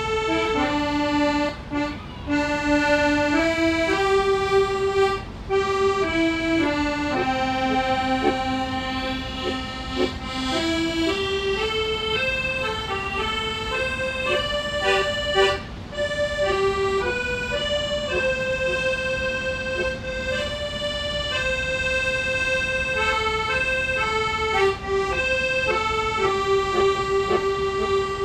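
Accordion played live, a melody of held notes moving in steps over sustained chords, broken by a few short pauses.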